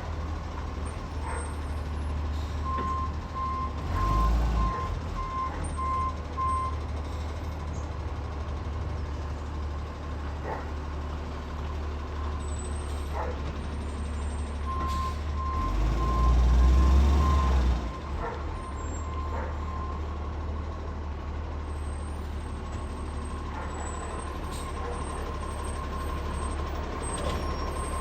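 Garbage truck's diesel engine running steadily, revving up hard twice, the second time the loudest. Three runs of its high-pitched warning beeps sound over it: early on, about halfway through, and again near the end.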